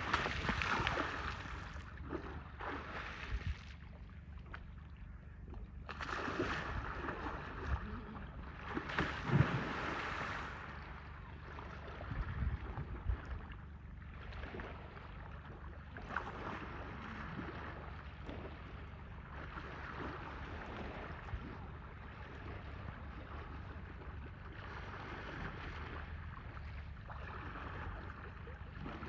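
Water splashing and sloshing in irregular surges as Asian elephants play in a pool, over a steady low rumble of wind on the microphone.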